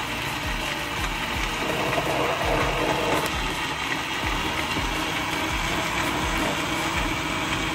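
Electric countertop blender running steadily, its motor churning ice and liquid in the jug.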